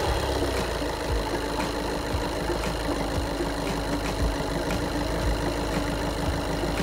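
Volkswagen Golf VII 1.6 TDI diesel engine just started and idling steadily, its alternator charging the battery.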